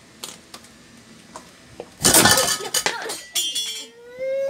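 Small metal fan-motor parts and pliers clinking and clattering on a work table, loudest about two seconds in after a few light clicks. A baby starts to cry near the end.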